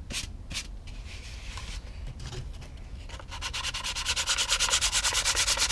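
Hand sanding with sandpaper on a block over filler on a balsa-and-plastic model joint. It starts with slow, separate strokes, then about three seconds in turns to quick, even back-and-forth strokes that grow louder. The filler is still slightly wet.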